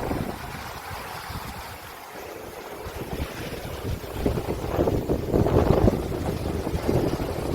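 Wind blowing over the sea, easing off briefly and then gusting stronger from about halfway, buffeting the microphone.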